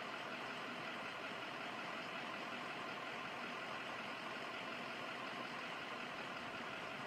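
Steady drone of an idling engine, with no distinct events.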